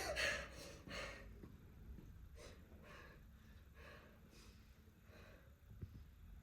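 A woman's faint breathing: a series of short, audible breaths about once a second.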